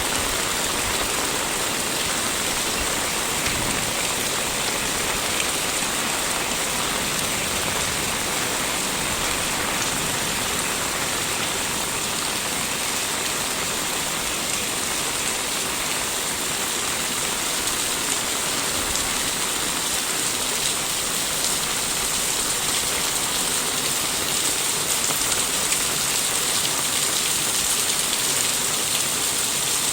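Fine rain falling steadily on a street and the rooftops and eaves around it, an even patter with no breaks.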